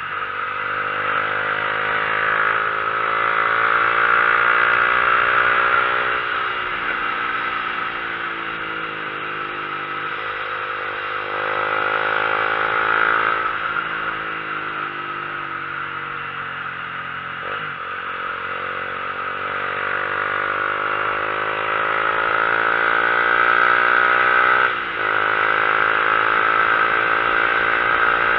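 Motorcycle engine under way, its note rising and falling with the throttle and breaking at several gear changes, with a short dip in level near the end, over a steady rush of wind.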